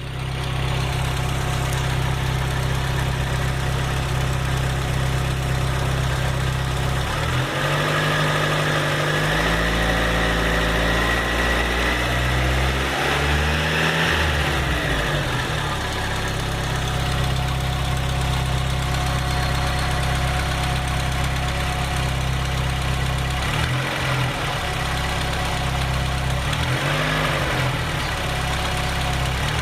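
Volkswagen Pointer engine idling, revved up and back down once for several seconds, then blipped twice briefly near the end. The idle carries an unfamiliar noise that the owner says stops being heard when accelerating, and wonders may be rod knock or pinging.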